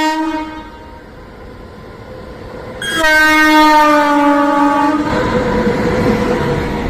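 Train horn: the tail of one long blast, then a second long blast about three seconds in that sags slightly in pitch, followed by the loud rumble of the train running past on the track.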